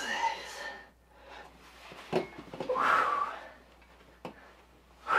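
A man's strained grunts and forceful breaths under a heavy dumbbell bench press, with 120 lb dumbbells weighted further by ankle weights, and a short knock about two seconds in.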